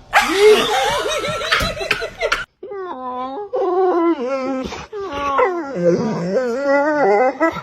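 Hearty laughter for about two and a half seconds. After a short break comes a run of pitched, wavering vocal calls that bend up and down over and over.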